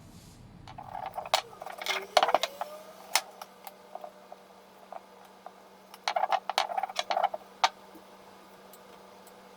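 Objects being handled, rattling and clattering in two bursts about four seconds apart, with single sharp clicks between them.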